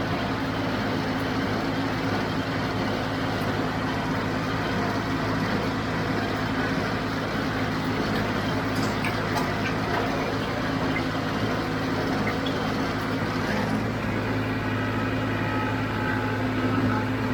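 John Deere 5055D tractor's three-cylinder diesel engine running steadily at an even engine speed.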